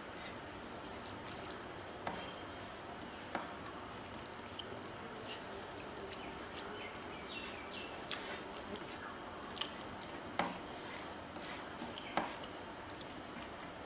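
Fingers mixing rice and curry on a steel plate: soft wet squishing and scraping, with about half a dozen sharp clicks and taps along the way.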